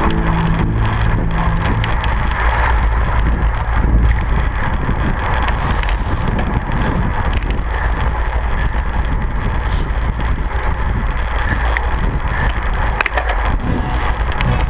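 Wind rushing over the microphone of a camera mounted on a road bike's handlebars, with road rumble from the bike at race speed: a loud, steady low rush with a few faint clicks.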